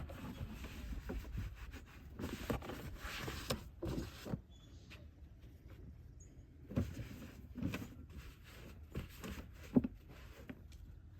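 Irregular handling noises at the car: scattered knocks and rustles, with a single sharp click near the end.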